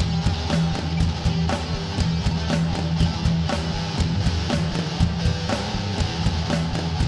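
Rock instrumental music: electric guitar over a steady drum beat, about two beats a second.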